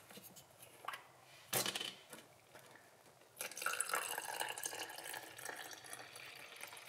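Water poured from one plastic bottle into the narrow neck of another, a steady trickling pour that begins about three and a half seconds in, after a couple of light clicks.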